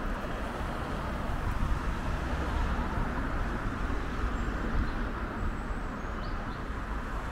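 Steady street traffic noise: cars running along the road, with a low rumble throughout. A few faint high chirps come about six seconds in.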